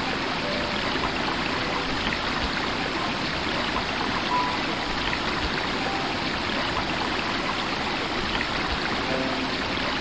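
Shallow rocky stream flowing over boulders in small rapids: a steady, even rush and splash of water.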